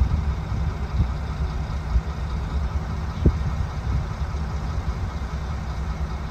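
Coach bus engine idling with a steady low rumble, and one short knock about three seconds in.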